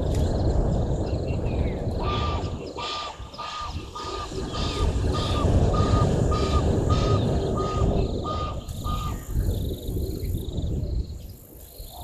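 A bird calling a steady series of about fifteen short, harsh notes, about two a second, from about two seconds in to about nine seconds in. A low rumbling noise runs underneath.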